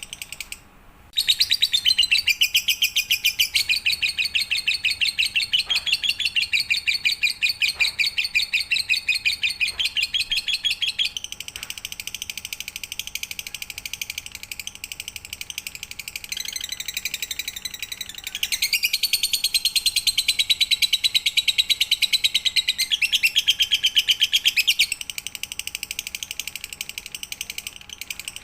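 Lovebird singing a long, rapid, high-pitched chattering trill with a brief break about a second in. It is louder for the first ten seconds and again for several seconds past the middle.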